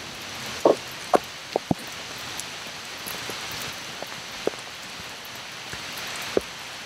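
Steady rain falling, with a few sharp taps cutting through it, a cluster about a second in and one near the end.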